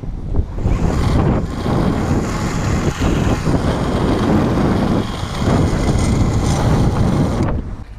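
Loud wind rush buffeting the microphone of a camera riding a zipline, stopping abruptly near the end.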